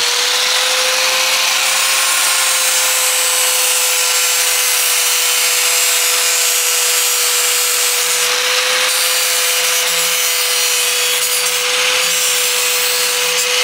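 Angle grinder with an abrasive disc held against the rough cut edge of sheet-metal body panel, smoothing it. The motor gives a steady whine over a continuous grinding hiss, with no breaks.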